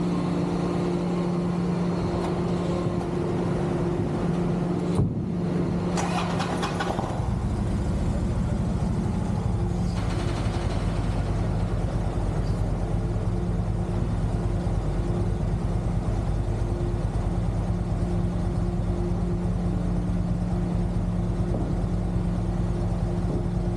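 An engine running steadily with a constant drone and hum. A short knock comes about five seconds in, and a heavier, deeper rumble joins from about seven seconds on.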